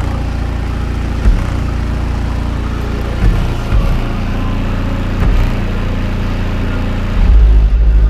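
Bass-heavy music played very loud through two Skar EVL 12-inch subwoofers in a trunk enclosure, the deep bass swamping everything else. The bass gets louder about seven seconds in.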